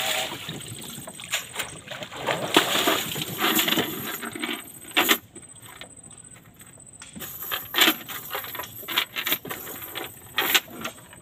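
Cast net being swished and rinsed in river water over the side of a small boat, splashing for the first few seconds. Then the net is gathered onto the wooden boat floor, its weights clinking and knocking in a few sharp taps.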